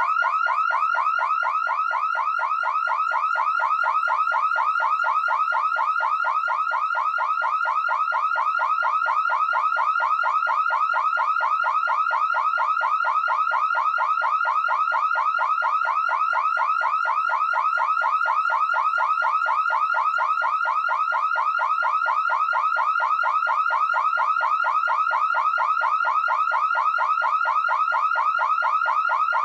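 Car security alarm siren sounding continuously, a loud electronic tone in rapid, evenly repeated rising sweeps.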